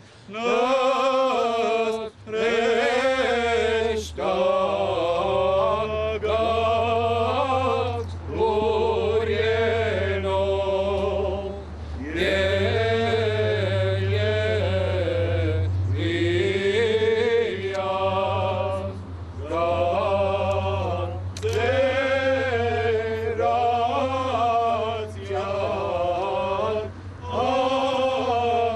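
Unaccompanied male chanting of an Armenian church hymn, sung in phrases of a couple of seconds with brief breaths between them. A steady low hum runs underneath from about three seconds in.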